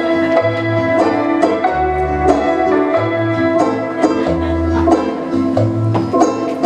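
Instrumental music with a regular beat and a moving bass line.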